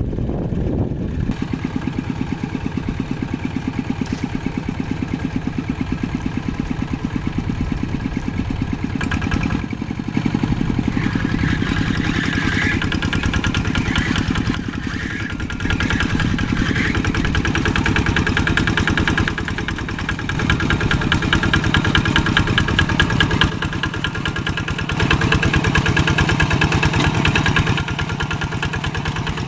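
Old tractor engine running with a rapid firing beat, its speed and loudness stepping up and down several times.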